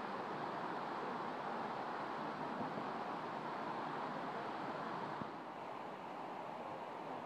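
Steady splashing hiss of a thin waterfall pouring into an icy pool, easing slightly after a faint click about five seconds in.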